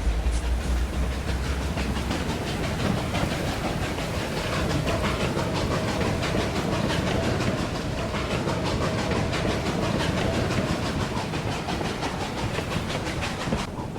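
Hand-made foley of a steam locomotive running: rapid clickety-clack of wheels over rail joints with a hiss of steam. A low rumble fades out in the first couple of seconds.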